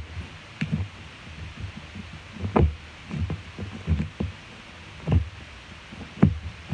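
Slime being pushed and poked back down into a glass jar with the fingers, making irregular soft pops and thumps.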